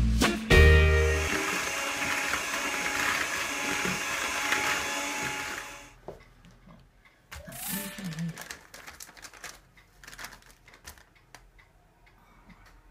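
A short end of swing music, then an electric hand mixer running steadily in a bowl of dough for about five seconds before it is switched off. After that come quieter clinks and rustling as utensils and a paper bag are handled.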